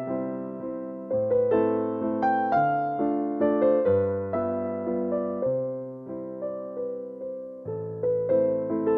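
Background music: a slow piano tune, chords and bass notes struck and left to fade.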